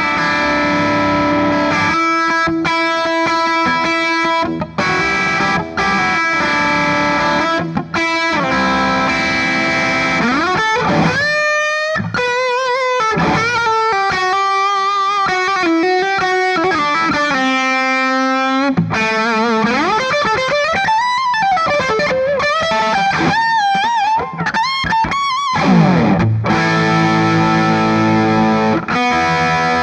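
Gibson Les Paul Special Double Cut electric guitar on its bridge soapbar P-90 pickup, played through an overdriven Soldano Astro 20 amp: strummed chords, then a single-note lead with string bends and wide vibrato, then chords again near the end.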